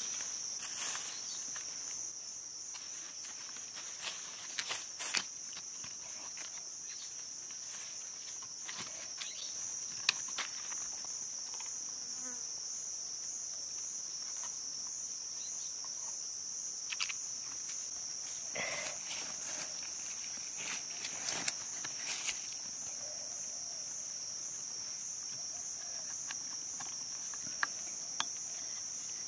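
A steady, high-pitched insect chorus drones without a break. Scattered sharp clicks and knocks of bamboo pieces being handled and fitted together sound over it.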